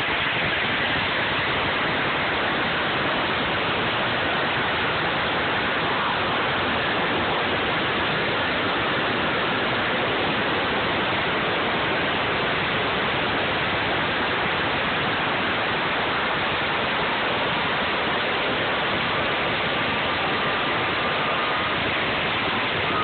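A huge string of firecrackers going off continuously, the bangs so fast and dense that they merge into one steady crackling noise.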